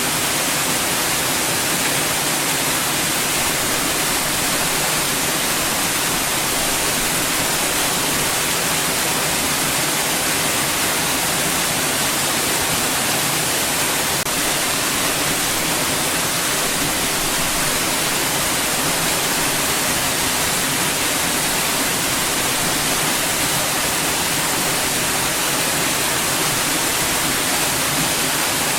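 Steady, unchanging white noise: an even hiss, brightest in the treble, with no events or changes.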